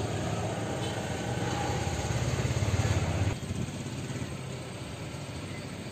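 A motor vehicle's engine running steadily and growing louder, then cutting off abruptly about three seconds in, leaving a quieter steady background.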